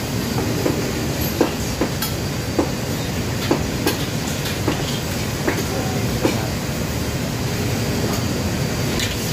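Steel ladle knocking and scraping against a carbon-steel wok about once a second, stopping a little over six seconds in, over the steady low rumble of a commercial wok range's burners and extraction hood.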